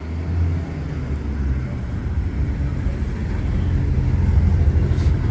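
Dodge Viper GTS's V10 engine rumbling at low speed as the car rolls by, a deep, uneven burble that grows slightly louder toward the end.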